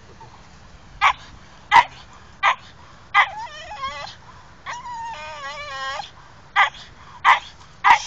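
A dog barking, about seven short sharp barks, with two stretches of long wavering high whining in the middle.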